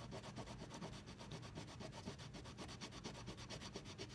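Coloring on paper: faint, quick and even rubbing strokes of a coloring tool scraping back and forth across the sheet.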